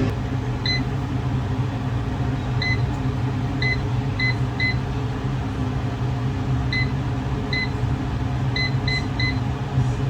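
Short electronic beeps, about ten at uneven intervals, as buttons on a kitchen appliance's control panel are pressed to add cooking time, over the steady hum of its fan running.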